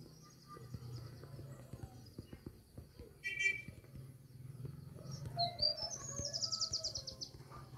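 Birds chirping: a high trill early on, a short sharp call about three seconds in, and a rapid trill that rises in pitch about five seconds in, the loudest sound here. A low steady hum and faint ticks sit underneath.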